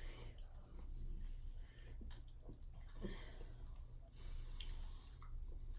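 Chewing and wet mouth sounds of people eating, with scattered small clicks and rustles.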